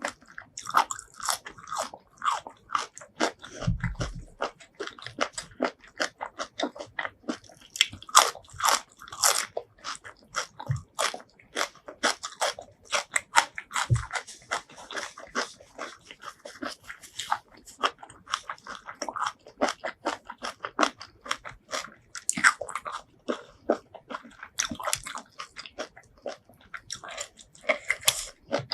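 Close-miked ASMR eating: a person chewing and biting seafood, a dense run of wet mouth clicks, several a second, with a few dull low knocks.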